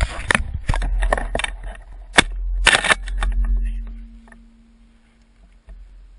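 Shotgun fired at flushing quail: a sharp report right at the start and more sharp reports about two seconds in, with clicks and rustle of the gun being handled in between. It goes much quieter after about four seconds.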